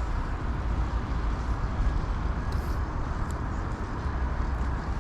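Steady outdoor background noise: a low, fluctuating rumble with a hiss over it and no distinct event.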